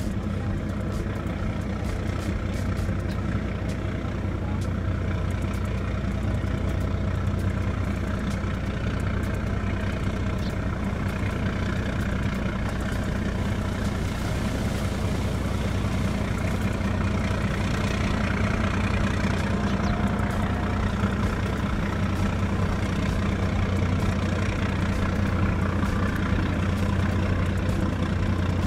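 Fast passenger ferry's engines running at low speed as it manoeuvres in to berth: a steady low drone, a little louder in the second half.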